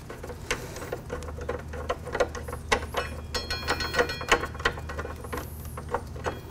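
Light, irregular metallic clicks, about two a second, from a hand tool turning a bolt on a motorcycle's Brembo front brake caliper.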